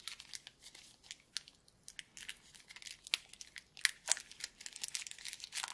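Packaging crinkling and rustling with irregular sharp crackles as small accessories are unwrapped and handled.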